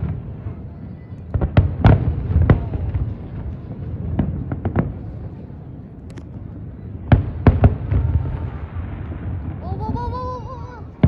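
Aerial fireworks shells bursting in a display: sharp bangs in quick clusters, each with a low rumbling boom, in three groups a few seconds apart.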